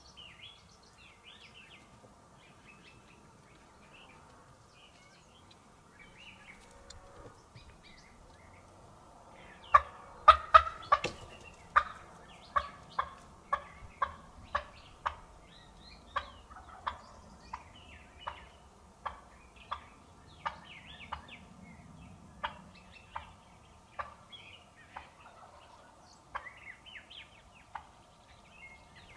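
Wild turkey calling close by: a long run of sharp, clipped notes, about one every half second to a second. They start about ten seconds in, are loudest at first, and fade toward the end, over faint songbird chirps.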